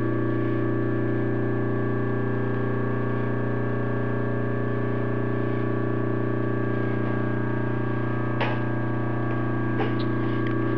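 Steady machine hum made of several even tones, with two light clicks near the end from handling at the stopped lathe chuck.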